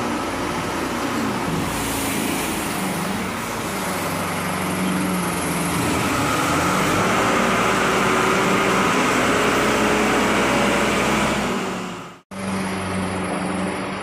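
A vehicle engine running steadily, a little louder through the middle, with a sudden break of a fraction of a second near the end.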